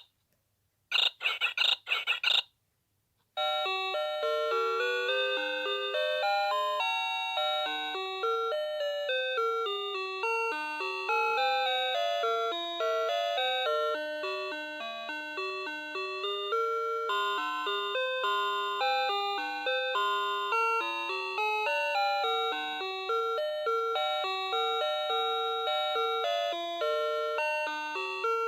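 Noah Seimitsu Fruity Melody alarm clock sounding: a short run of rapid electronic beeps, a pause of about a second, then an electronic chime melody of clear notes, several at a time, that plays on steadily.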